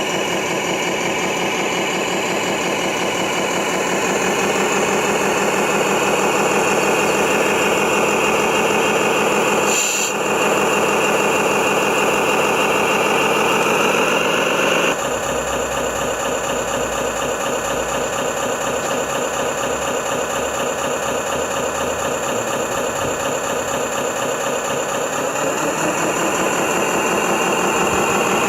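Engine sound of radio-controlled model trucks and construction machines, running steadily with rising revs. The sound changes abruptly about halfway through, and the revs climb again near the end.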